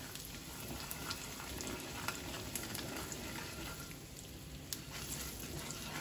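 Ghee sizzling in a kadhai with mustard seeds and asafoetida, stirred with a wooden spatula. Scattered sharp pops sound throughout as the mustard seeds splutter in the hot fat.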